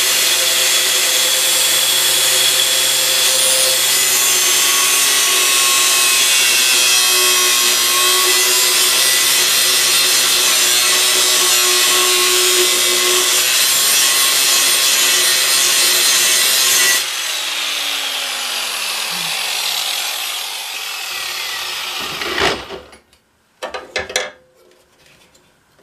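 Angle grinder with a cut-off disc cutting through a rusted steel lawnmower blade beside its hub: a loud, steady grinding with a whining tone. About 17 seconds in it is switched off and the motor winds down, falling in pitch, followed by a few knocks near the end.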